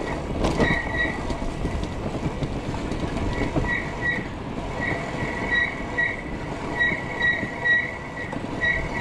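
Disc brakes on a Cyrusher Ranger fat-tyre e-bike squealing as they are applied downhill: a high-pitched squeal that comes and goes in short pulses many times, over the low rumble of the ride. The squeal is "bloody terrible", and the brakes are due for replacement.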